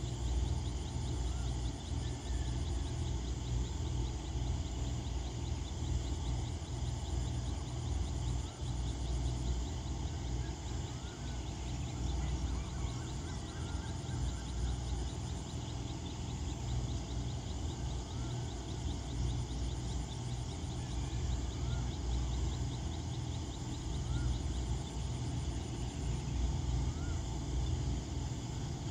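Steady low hum of a diesel locomotive idling in the distance, with insects trilling and short rising chirps every couple of seconds.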